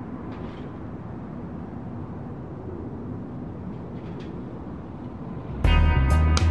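Steady low outdoor background rumble with a couple of faint clicks, then music with a heavy beat starts suddenly near the end.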